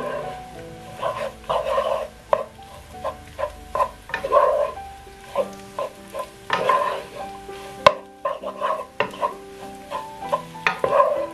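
A wooden spatula scrapes and turns rice in a stone-coated wok in quick, repeated strokes, with a few sharp knocks against the pan, while the rice sizzles. Soft background music plays underneath.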